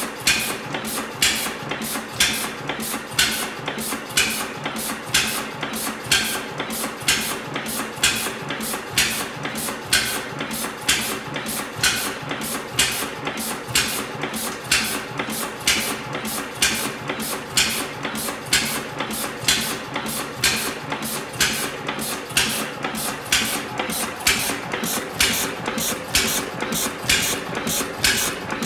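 Dudbridge 3hp single-cylinder horizontal gas engine of about 1900 running steadily, its valve gear clacking in a regular beat with a louder stroke about once a second.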